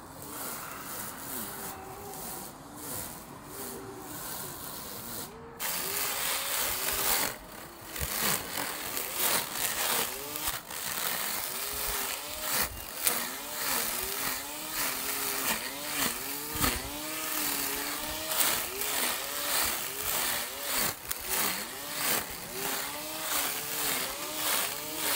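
Small handheld string trimmer running, its line cutting through grass with a hissing, ticking sound that gets louder about five seconds in.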